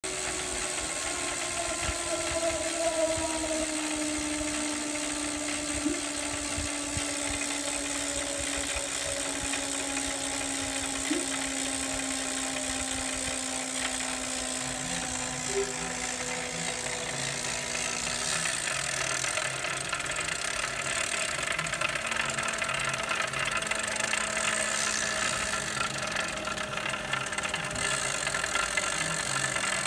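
Saris Hammer H2 smart turbo trainer running, its flywheel whine slowly falling in pitch, with a loud rattling noise from inside the unit: a fault that has appeared after only six months' use.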